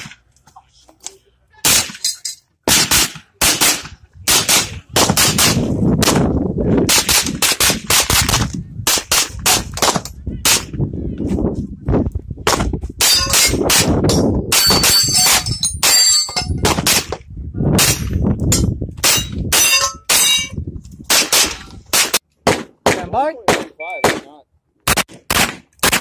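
SIG MPX pistol-caliber carbine fired rapidly in strings of quick shots, with only brief pauses between strings. Some shots are followed by a short metallic ringing.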